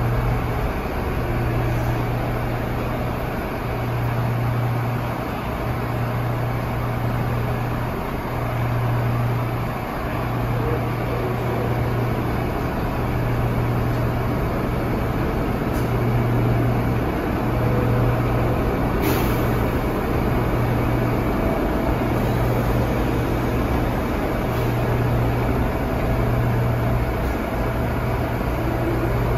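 R179 New York City subway car standing at the platform with its doors open, its onboard equipment running with a steady low hum that pulses about every second and a half. A short click comes about 19 seconds in.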